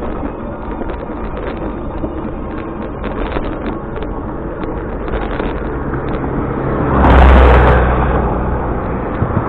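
Steady vehicle and road noise, with a loud rushing swell and deep rumble about seven seconds in, as of a vehicle passing close by.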